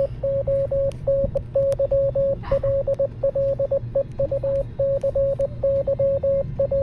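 Morse code beeps: a single steady tone keyed on and off in quick dots and longer dashes, with short gaps between letters, running on without a break over a low hum.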